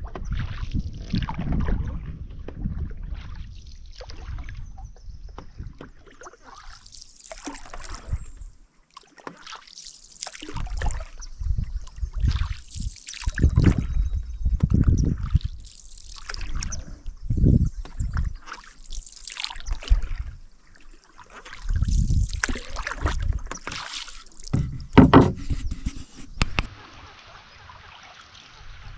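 Canoe paddling: a paddle dipping and pulling through creek water, with a stroke about every two to three seconds.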